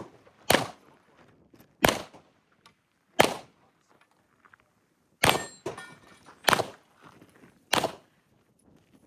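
Six gunshots fired at a steady pace, about one every second and a half, with a slightly longer pause after the third.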